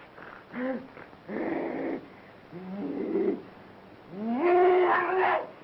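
A man howling and moaning like an animal, four cries in a row, each sliding up in pitch and then held. The last, about four seconds in, is the longest and loudest.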